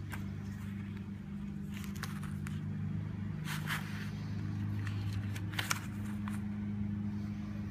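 A steady low hum in the background, with a few short clicks and rustles from small lock parts being handled.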